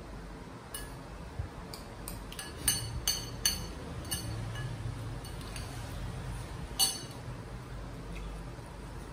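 Metal spoon clinking against ceramic bowls while eating: a quick run of ringing clinks in the first few seconds and one more loud clink near seven seconds.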